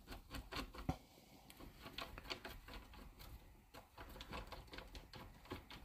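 Faint, irregular small clicks and taps from hands handling a twist-lock hose fitting and the hose assembly tool clamped in a bench vise.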